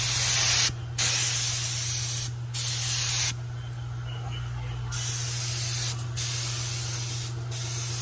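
Air-powered gravity-feed paint spray gun hissing as it sprays paint in passes. The hiss breaks off briefly several times where the trigger is let go, with a longer, quieter gap about three to five seconds in.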